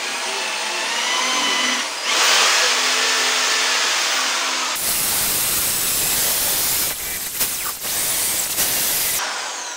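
Electric drill spinning a cleaning attachment against a 16 mm Kayaba shock shaft to scrub it clean. It is loud and gets rougher as the attachment bites about two seconds in, then heavier still from about halfway. Near the end the trigger is released and the motor winds down with a falling whine.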